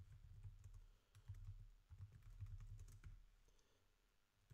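Computer keyboard typing: a faint run of quick key clicks that thins out and stops about three seconds in.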